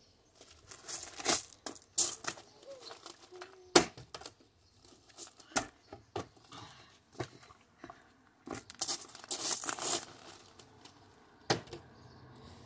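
Scattered crunching and crinkling: footsteps on gravel and a plastic water bottle being handled, with one sharp knock about four seconds in and a denser run of crunching near the end.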